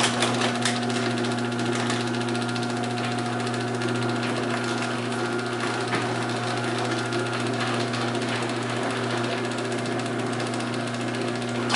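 LiftMaster 1/3 HP chain-drive garage door opener running the door down, a steady motor hum with chain and gear noise, stopping with a click at the end of travel. The door closes fully on its newly set close force.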